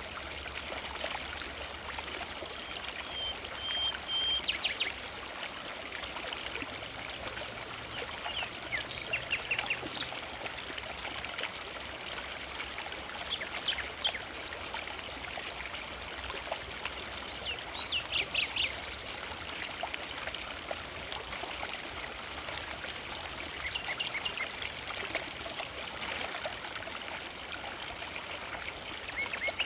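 Forest river flowing steadily, a continuous rushing of water. A bird calls over it every few seconds in short, quick, high trills.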